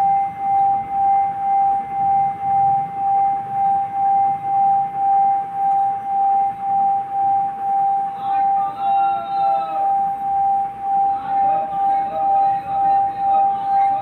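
Singing bowl rubbed around the rim with a wooden stick, giving one steady ringing tone that swells and fades in a regular wobble nearly twice a second. From about eight seconds in, further higher, shifting tones join it.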